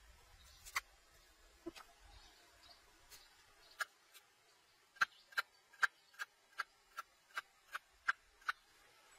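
Kitchen knife slicing lemongrass into thin rings on a wooden chopping board: a few scattered taps of the blade on the board, then from about halfway a steady run of sharp chops, nearly three a second.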